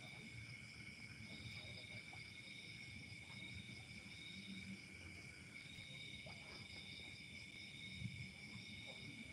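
Faint, steady high-pitched chorus of night insects such as crickets trilling, one of the voices dropping out briefly twice, over a low rumble.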